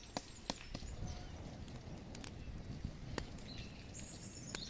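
Embers of an open wood fire being poked and raked with a wooden stick: a few scattered sharp cracks and knocks over a low hiss. Faint bird chirps come in near the end.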